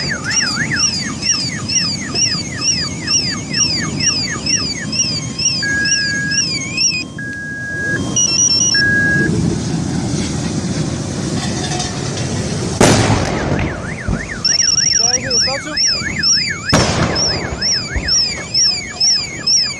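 Car alarms warbling and beeping over the rumble of a burning wreck, with two loud explosions from the wreck about 13 seconds in and again about 4 seconds later.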